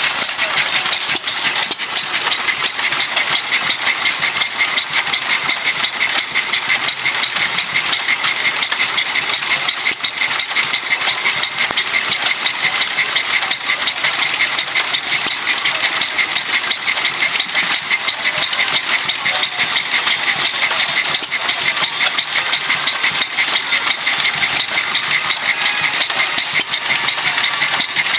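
Antique hit-and-miss stationary gas engine running steadily: a constant clatter of rapid clicks from its firing and valve gear, with no change throughout.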